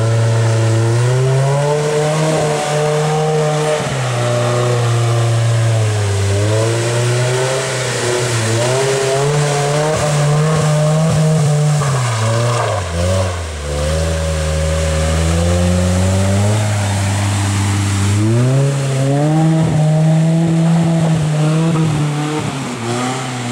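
Off-road vehicle's engine working hard at varying revs, its note rising and falling over and over, sinking low for a few seconds about halfway through before climbing again.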